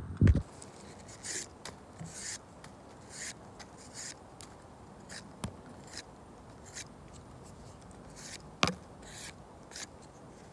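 Folding knife blade shaving a thin wooden stick in a series of short scraping strokes, about one a second, with two sharp clicks along the way. Two low thumps right at the start.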